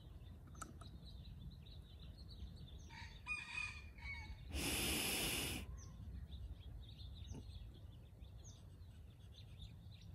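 A bird call around three to five and a half seconds in, over a low steady rumble.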